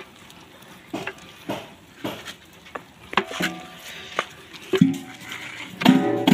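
Long wooden paddle stirring rice in a huge metal biryani pot, knocking and scraping against the pot every half second or so. Near the end a louder sound with steady pitched tones cuts in.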